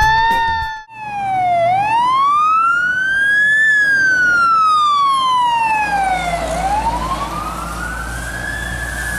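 Fire engine siren wailing, its pitch sweeping slowly up and down in long rises and falls, after a short first rise that cuts off just before a second in. A low rumble grows underneath in the second half.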